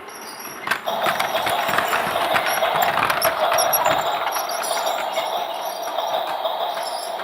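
Toy train running: a small motor's steady whir with rattling, clicking gears and wheels. It starts up sharply just under a second in, after a click and a quieter stretch.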